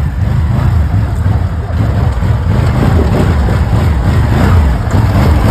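ATV engine running loudly.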